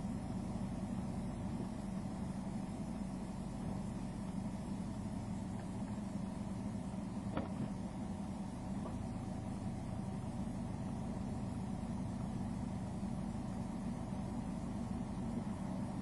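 Car engine idling steadily while the car waits stationary, heard from inside the cabin, with one faint click about seven seconds in.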